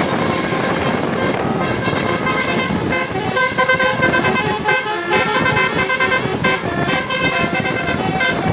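Bus engine and road noise, then from about two seconds in a bus telolet horn playing a quick tune of short stepping notes over the traffic noise.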